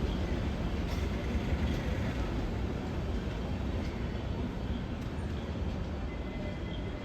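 Express passenger train's coaches rolling along the platform as it pulls in, a steady low rumble that eases slightly, with faint wheel clicks; a thin high squeal sets in near the end as it slows.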